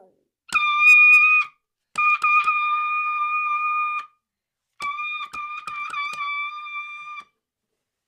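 Buzzy electronic alarm tone from an elevator button panel, sounded three times: about one second, then about two, then about two and a half, with sharp clicks over the last two.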